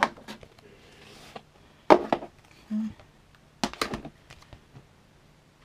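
Hands handling a Blu-ray case and its paper inserts: sharp plastic and cardboard clicks and knocks in three short clusters, about two seconds apart, with light rustling between.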